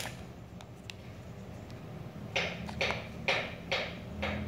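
Hands pressing soft playdough into a plastic star-shaped cutter on a tile floor: a light tap at the start, then about five short, soft scuffs roughly two a second in the second half.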